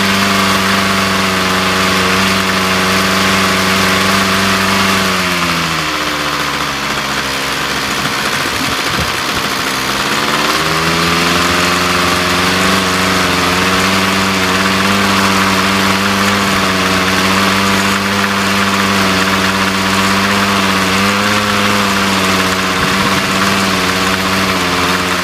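Ryobi PBC 3046YE strimmer's two-stroke engine idling with its air filter off and the carburettor bare. About five seconds in, its speed sags and runs low and uneven for several seconds, close to stalling, then picks back up and idles steadily again.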